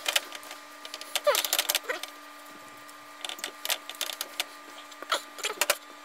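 Chef's knife and metal fork scraping and clicking against a nonstick skillet while pulling apart cooked pork shoulder, in irregular short strokes with a falling scrape about a second in.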